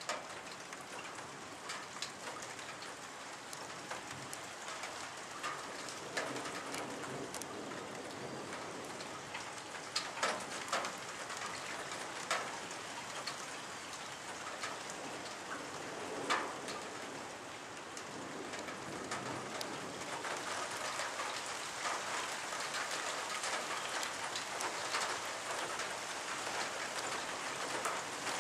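Steady rain falling, an even hiss with scattered sharp ticks of drops striking close by, a few of them louder in the middle.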